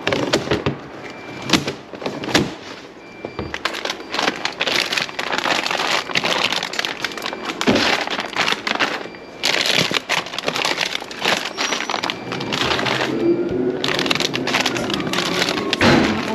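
Plastic food packaging crinkling and rustling as wrapped food is rummaged through and lifted out of a plastic wheelie bin, with a few sharp clicks from a plastic folding crate in the first seconds.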